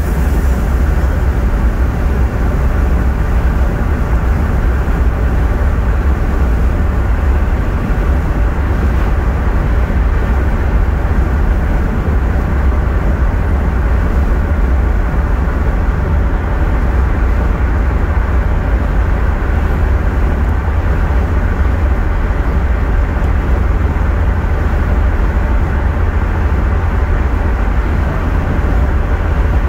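Volvo 940 Turbo's turbocharged four-cylinder cruising at highway speed, heard from inside the cabin as a loud, steady low rumble of engine, tyres and wind.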